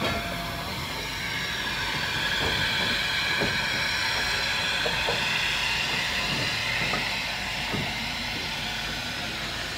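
Passenger coaches hauled by a small saddle-tank steam locomotive rolling slowly past, the wheels squealing on the rails in wavering high tones, with a few knocks from the wheels over rail joints.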